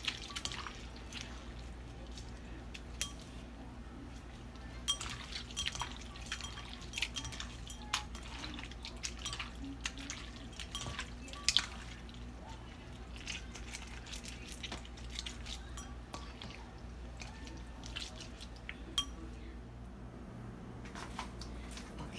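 Wet squishing and scattered small clicks as raw conch meat is rubbed and squeezed by hand with lime pieces in a glass bowl, with occasional clinks against the glass.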